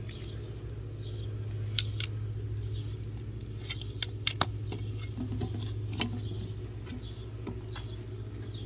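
Heavy-duty ratcheting PVC pipe cutter cutting through corrugated plastic pond hose, giving sharp clicks in small clusters about two, four and six seconds in. A steady low hum runs underneath.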